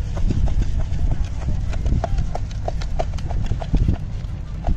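Spoon clacking rhythmically against a plastic mug as puffed rice and masala are tossed and mixed in it for jhal muri, about three clacks a second. A steady low rumble of wind on the microphone runs underneath.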